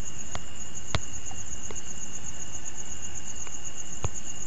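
Steady, high-pitched insect trill, pulsing evenly like a cricket, over a constant background hiss, with two soft clicks about one second and four seconds in.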